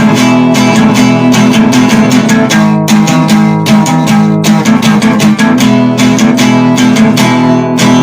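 Guitar music: rapid, steady strumming of an acoustic-sounding guitar with a low sustained bass underneath.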